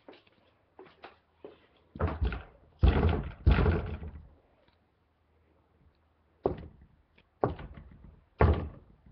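Heavy blows on a door, as someone locked out pounds and shoves at it: a few faint clicks, then three loud thuds in quick succession, then three sharp bangs about a second apart.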